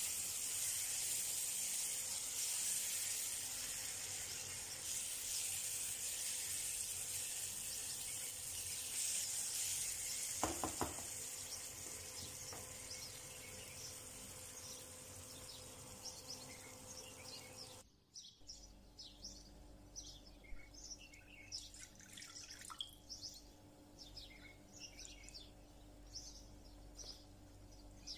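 Diced tomatoes, peppers and onion sizzling in oil in a frying pan, a high hiss that slowly fades, with a short clatter about ten seconds in. At about eighteen seconds the sizzling cuts off abruptly and faint bird chirps follow.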